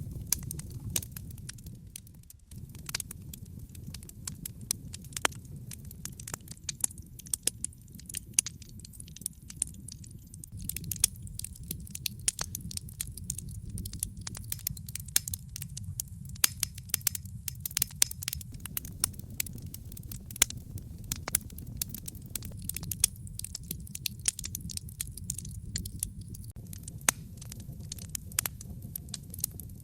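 Wood fire in a fireplace crackling, with dense irregular crackles and occasional sharp, louder pops over a steady low rumble of the flames.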